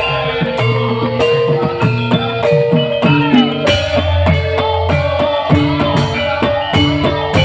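Live band music in an instrumental passage: drums keeping a steady beat under sustained melodic instrument lines, with a few bending notes about three seconds in.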